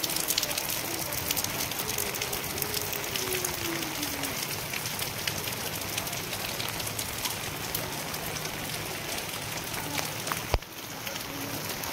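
Heavy rain falling steadily on wet ground and standing water, a dense patter of drops landing close by. A single sharp knock near the end.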